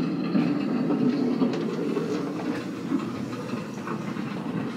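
Steady low rumble of rolling-train sound, a recorded train-in-motion ambience, inside a parked vintage private railroad car.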